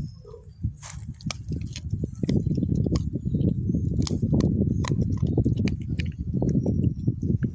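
Beagle chewing and gnawing a piece of raw chicken breast on the bone: wet, smacking chewing with sharp crunches of bone every second or so.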